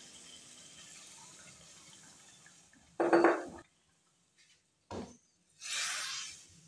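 Water poured from a glass jug into a pan of fried meat and masala, the stream fading out over the first few seconds. Then a loud clunk about three seconds in, a short knock near five seconds, and a wet swish of a wooden spoon stirring the gravy near the end.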